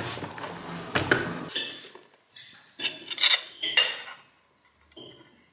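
Kitchenware clinking: metal utensils knocking against pots and dishes, about half a dozen sharp clinks, each with a short high ring.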